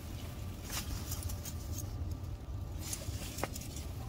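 Faint rustling and crackling of leaves being brushed, in a few short bursts, over a steady low rumble.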